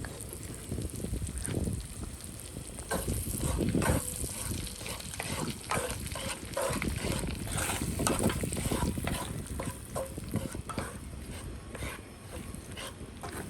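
Steak and eggs frying in butter in a cast iron skillet: a steady sizzle with irregular pops, and a utensil scraping and stirring in the pan.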